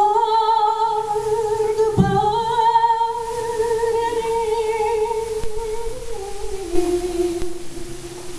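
A woman's voice singing unaccompanied, holding long notes with a slight vibrato and stepping down in pitch twice near the end.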